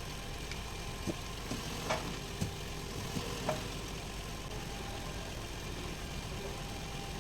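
A vehicle engine idling with a steady hum, with a few light clicks and taps over the first three and a half seconds.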